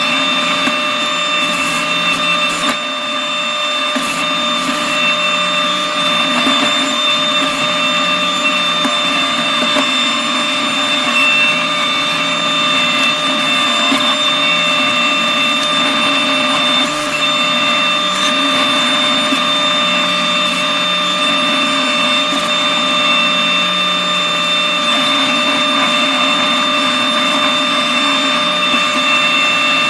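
New Holland C327 skid steer running with its McLaren RM60 forestry mulching head spinning: a steady high whine over the machine's low drone, holding level throughout.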